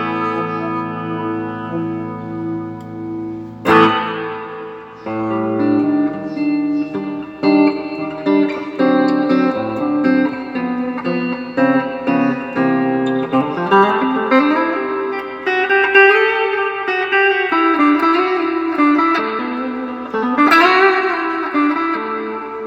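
Electric guitar played through an Electro-Harmonix Holy Grail Nano reverb pedal, the repaired pedal working again: ringing strummed chords, then single picked notes, and from about halfway notes that bend and waver in pitch, with a fresh strum near the end.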